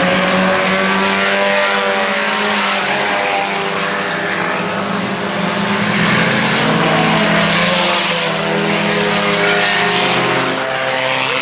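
A pack of IMCA Sport Compact race cars running flat out, their four-cylinder engines overlapping in several steady engine notes.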